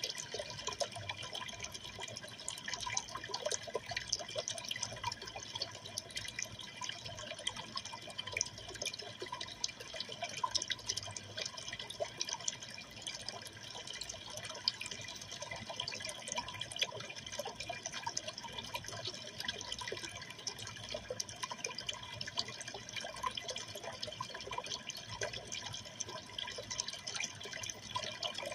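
Aquarium water trickling and splashing steadily, with many small drips and plinks and no change in pace.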